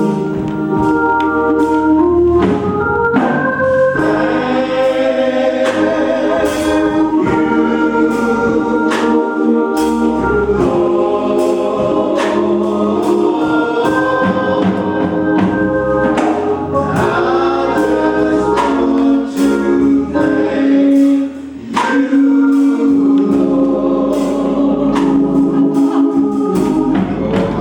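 Gospel choir singing over organ, with a steady beat of drums.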